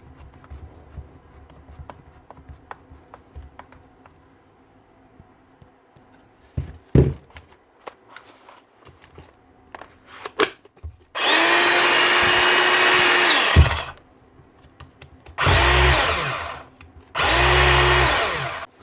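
Hilti TE7-A 36 V cordless SDS drill, freshly fitted with a new armature and brushes, run up on the trigger three times: one steady run of about two and a half seconds with an even whine, then two shorter runs. Before that, light clicks and a single knock of the tool being handled.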